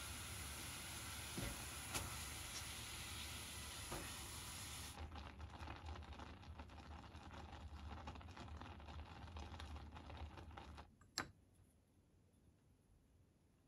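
A pot of soy-based broth boiling with a steady hiss, with a couple of light knocks as enoki mushrooms are tipped in from a metal strainer. About five seconds in it turns to a softer, crackling simmer of small bubbles, which stops about eleven seconds in. A single sharp click follows, then near silence.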